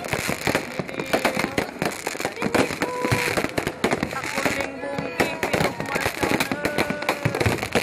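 Fireworks going off in a dense, continuous run of pops and bangs, with people's voices among them.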